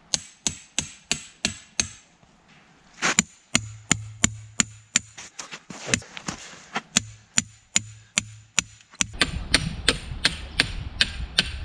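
A long run of sharp, evenly spaced knocks, about three a second, like striking wood.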